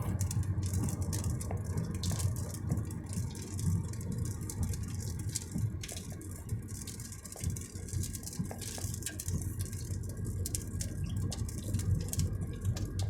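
Inside a moving car: a steady low road and engine rumble with frequent sharp ticks of rain hitting the car's roof and windshield.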